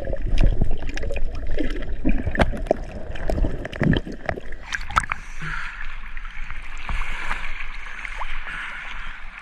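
Underwater bubbling and clicking with a low rumble as the camera moves through the water; about five seconds in it breaks the surface and the sound turns to water sloshing and lapping around it.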